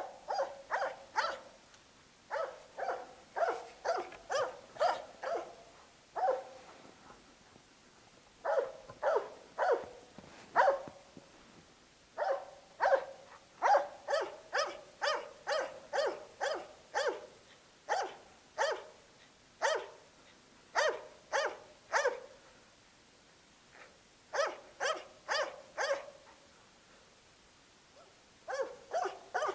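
A Jämthund (Swedish elkhound) barking steadily in runs of sharp barks, about two to three a second, broken by short pauses. This is a moose dog's bay, holding a moose in place for the hunter.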